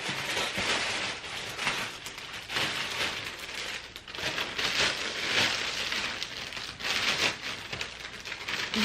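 Plastic packaging rustling and crinkling in repeated swells as stroller parts are handled and unwrapped.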